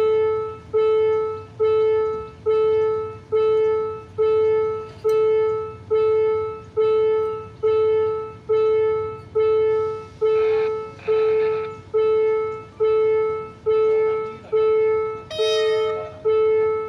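Level-crossing warning bell ringing one repeated bell-like tone, a little more than once a second, each stroke fading before the next: the crossing signal sounding while the barriers are down for an approaching train. A short horn toot sounds near the end.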